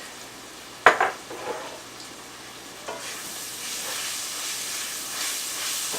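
Browned ground beef with tomato paste and spices sizzling in a frying pan while being stirred. A sharp knock of the utensil against the pan comes about a second in, and the sizzle grows louder from about halfway.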